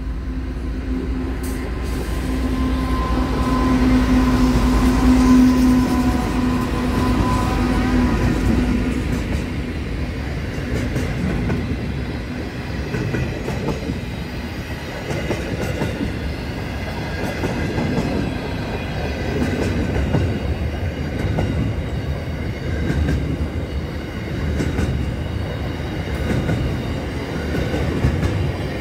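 Pacific National freight train passing at close range. A steady tone from the locomotives builds to its loudest about five seconds in and fades by about nine seconds. After that the wagons go by with a continuous rumble and the clickety-clack of wheels over the rail joints.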